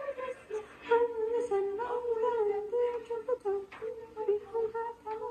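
A girl humming a tune to herself, short held notes stepping up and down.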